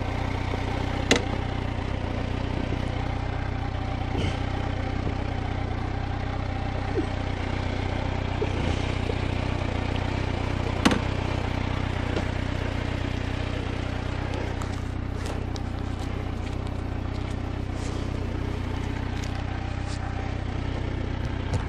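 Motorcycle engine idling steadily, with a few sharp clicks over it, the loudest about eleven seconds in.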